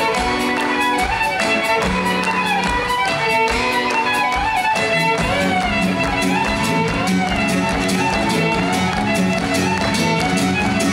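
Live folk-rock band playing a fast fiddle reel: a violin leads with quick running notes over lower accompanying notes and a steady beat.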